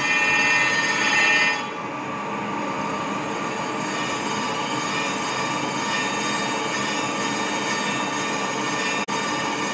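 Crankshaft grinding machine's abrasive wheel grinding a journal of a Scorpion mHawk crankshaft: a steady metallic screech over the hum of the machine. The screech is shrillest for about the first second and a half, then settles into a lower, even grind, with a brief dropout near the end.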